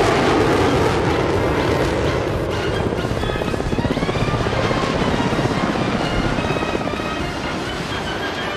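Military aircraft engine noise from jets and helicopters on a night runway, with a helicopter's rotor beating rapidly in the middle, mixed with background music.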